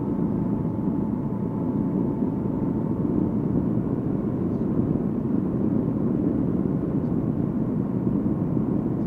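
Honda NT700V's V-twin engine running at a steady cruise, mixed with wind and road noise. It makes an even, dense rumble with a thin steady whine running through it.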